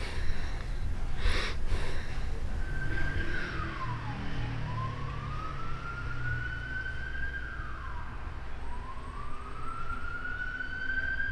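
Emergency vehicle siren wailing in a slow cycle, its pitch climbing slowly, holding, then dropping quickly about every four seconds, over a low steady rumble.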